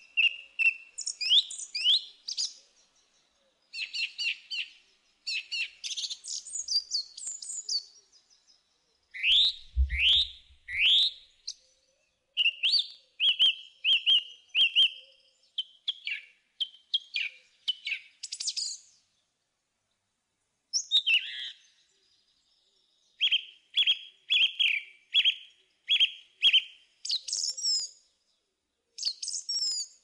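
A songbird singing in short, varied phrases of chirps, trills and whistled notes, some sweeping upward, broken by brief pauses. A brief low thump about ten seconds in.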